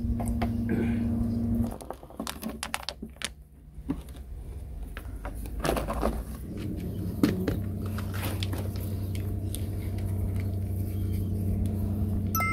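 Small river pebbles clicking against each other and scraping into wet cement as they are handled and pressed in by gloved hands, in irregular clicks. A steady low hum drops out near the start and returns about halfway through.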